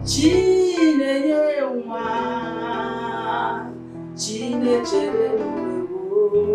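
A woman singing a gospel worship song, drawing out wordless notes that bend in pitch and settling into a long held note near the end, over backing music.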